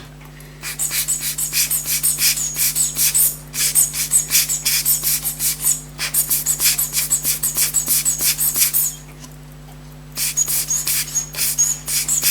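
Elgin pocket watch movement ticking at about five beats a second, in runs of a few seconds that stop and start again. The balance is not running freely: the restorer suspects a rusted hairspring that lets it overbank.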